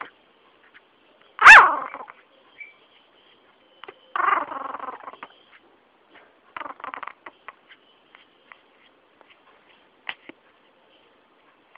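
Japanese Chin–Chihuahua mix puppy gives one sharp yip about a second and a half in, then a longer whining call around four seconds in and a shorter, quieter one near seven seconds.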